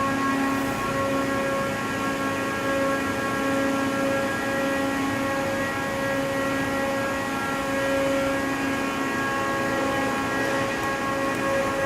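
Steady machine hum with several held tones that stay unchanged throughout.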